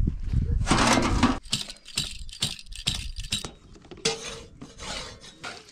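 Hard objects clinking, knocking and rattling in an irregular run of sharp strikes. A longer scraping rush comes about a second in, and another just after four seconds.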